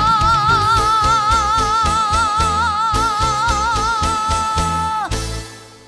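A female singer holds the final note of a song with wide vibrato over a steady backing beat. Voice and band stop together about five seconds in, and a short fade ends the song.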